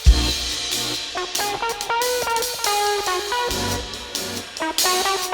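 Live band music: a plucked string instrument plays a quick run of short notes over a drum kit, with a heavy low drum hit right at the start and another low hit about three and a half seconds in.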